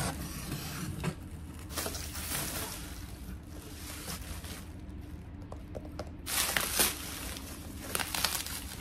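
Hands opening a taped cardboard parcel and handling its packaging: bubble wrap and plastic wrap rustling and crinkling in uneven bursts with a few sharp clicks, loudest a little past the middle, over a steady low hum.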